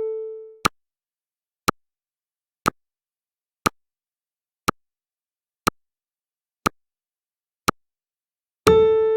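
Countdown timer sound effect: a sharp electronic tick once a second. A sustained pitched beep dies away at the start, and another begins near the end, the beeps coming every ten seconds.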